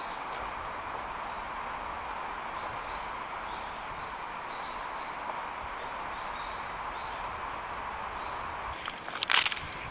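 Steady outdoor background hiss with faint, scattered high chirps. Near the end there is a short, loud crunching rustle.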